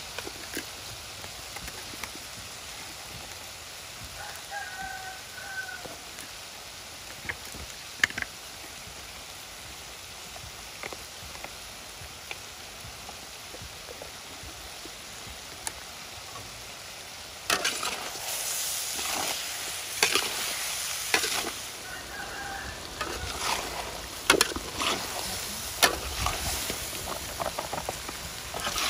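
Chicken pieces sizzling in a large wok, a steady hiss. About two-thirds of the way through, a metal spatula starts stirring and scraping against the wok, with repeated louder clatters. A chicken calls briefly twice in the background.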